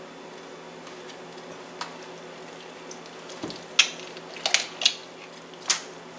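Hands tearing meat and skin off a rotisserie chicken: a few short, wet, crackly tearing sounds in the second half, over a faint steady hum.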